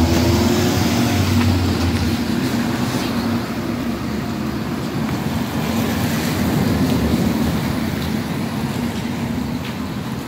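A vehicle engine running nearby: a steady low drone with a pitched hum, loudest near the start and slowly fading.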